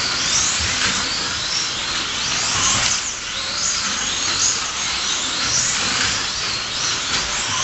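1/24-scale slot cars racing on a multi-lane track: the high whine of their small electric motors, rising and falling in pitch again and again as the cars speed up and slow down around the circuit.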